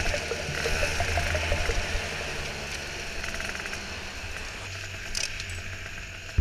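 Go-kart engine running with a low rumble and wind noise on the onboard camera, growing quieter as the kart slows down.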